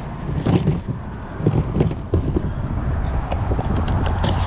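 Steady low rumble with a few light knocks and clicks from a magnet-fishing magnet being handled with the pieces of shopping cart stuck to it.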